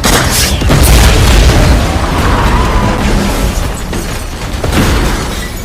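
A film explosion: a sudden loud blast with a long, deep rumble, then another sharp bang about five seconds in, under the film's score.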